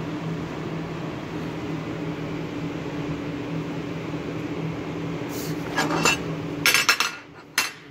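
A steady machine hum, with a few sharp metallic clinks near the end as the steel plate with its welded-on nuts is handled. The hum stops about seven seconds in.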